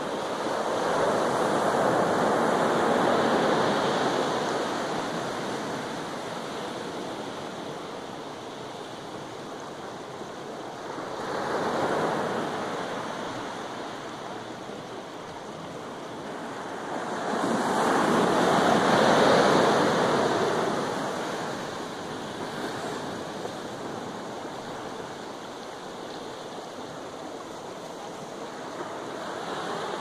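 Pacific Ocean waves breaking and washing up the shore, a steady rushing that swells three times: about two seconds in, near the middle, and again about two-thirds through.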